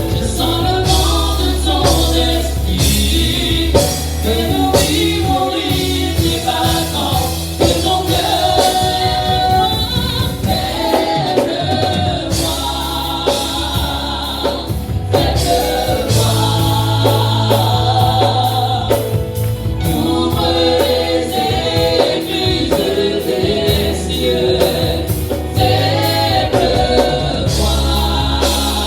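Gospel worship song: a choir singing over a band with sustained bass and a steady beat.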